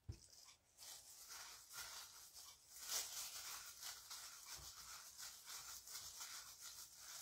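Faint crinkling rustle of a plastic bag worn over the hand as it rolls pichi-pichi pieces in a bowl of grated coating.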